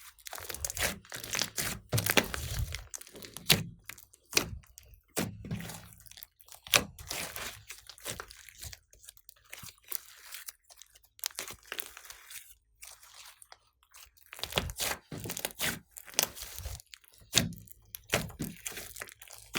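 Glossy slime squished and stretched by hand, making irregular sticky crackles and pops. The sounds come in clusters with brief pauses between them.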